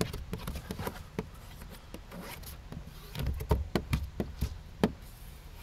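Hand squeegee rubbing and scraping in short strokes across wet window tint film on the rear glass, pressing the film into place, with scattered light knocks and taps, busiest about three to five seconds in.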